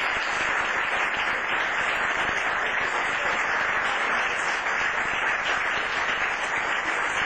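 Audience applauding, steady and continuous clapping.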